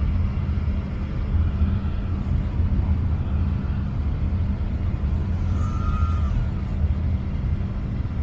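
Steady low rumble and hum of a jet airliner's engines and airflow, heard from inside the passenger cabin during the descent toward landing.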